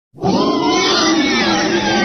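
Vastatosaurus rex roar sound effect: a dinosaur roar that cuts in suddenly out of silence and is held, wavering in pitch.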